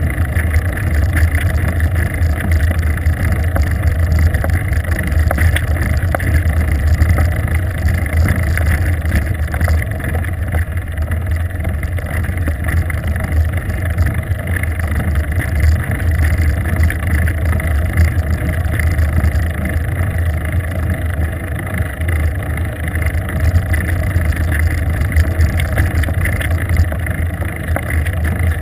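Steady low rumble of wind and road vibration picked up by a GoPro camera on a bicycle rolling along a paved road.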